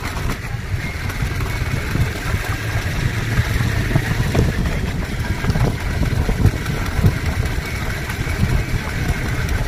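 Motor vehicle engine running steadily at low speed, heard from aboard the moving vehicle, with a low rumble throughout.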